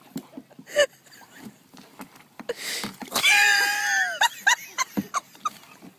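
A person's high-pitched scream, about a second long, starting a little after three seconds in, followed by several short yelps. Just before it there is a brief rush of noise.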